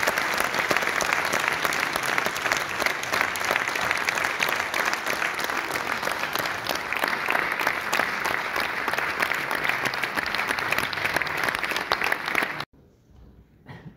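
Audience applauding, a dense, steady clapping that cuts off suddenly near the end.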